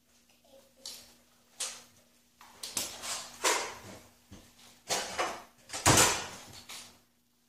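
Rustling, scuffing and knocking of a child scrambling close to the microphone, coming in a quick run of separate bursts, with the loudest, heaviest bump about six seconds in. A faint steady hum sits underneath.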